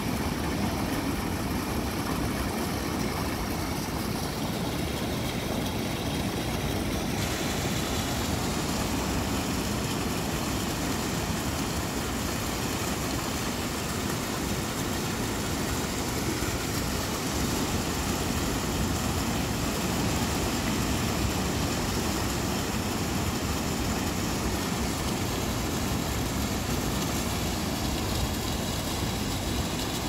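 Storm surf breaking over a rocky shore and a tetrapod breakwater, a steady rush of noise with a low rumble, heavy typhoon swell.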